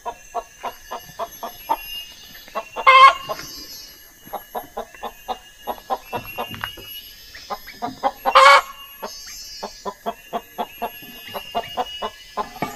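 Domestic hen clucking over and over in short 'tok-tok-tok' notes, about three or four a second, broken by two louder, longer squawks about three and eight seconds in. This steady clucking is the call of a hen about to lay an egg.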